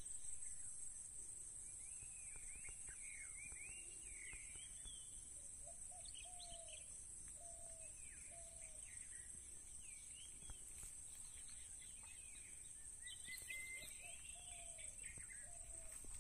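Wild birds chirping and calling, with a short lower slurred call repeated several times around the middle and again near the end, over a steady high-pitched hiss.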